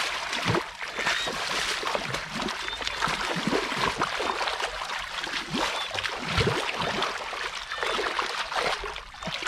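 Hands churning and splashing through shallow muddy water, with continuous irregular sloshing and squelching as the mud is stirred up.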